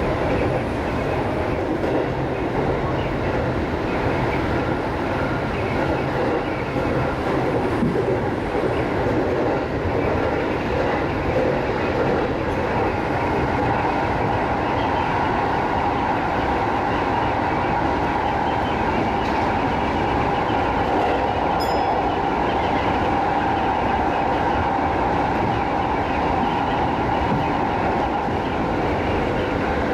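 JR East 205 series electric commuter train running along the line, heard from the driver's cab: a continuous rumble of wheels on the rails with clickety-clack over the rail joints. About halfway through, a steady high hum joins the running noise.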